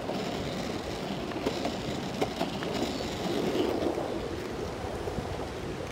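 Longboard wheels rolling over asphalt: a steady low rumble with a few sharp clicks.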